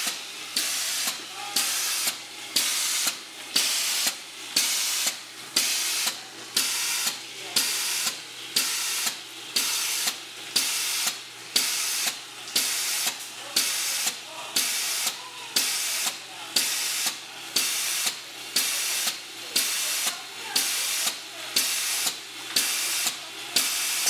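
Meheen bottle filler in its auto-clean cycle, pumping PBW cleaning solution through its valves and spraying it out. A loud spraying hiss cuts off and back on in a steady rhythm, about one and a half times a second.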